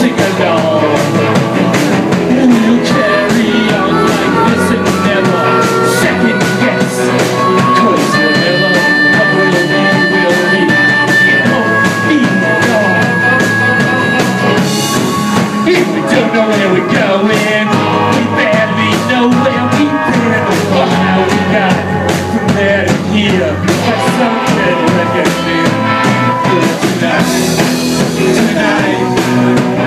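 Live rock band playing loud, with electric guitars, bass and drums. Long held high notes stand out from about a third of the way in to about halfway.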